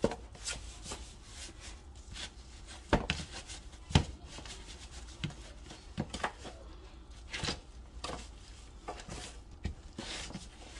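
Hands turning raw turkey legs and wings over and rubbing seasoning into them: soft rubbing with irregular taps and knocks, the sharpest two at about three and four seconds in.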